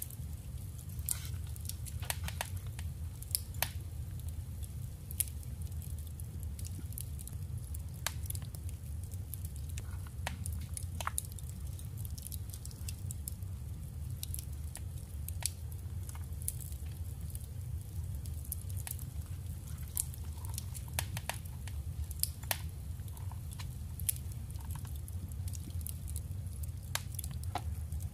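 Paper and craft materials being handled: scattered light clicks and taps, a second or so apart, over a steady low hum.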